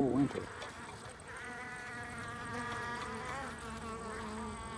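Honeybees buzzing at the hive entrance. A bee's wing hum swells from about a second in, holds for about two seconds with slight wavers in pitch, then stays fainter.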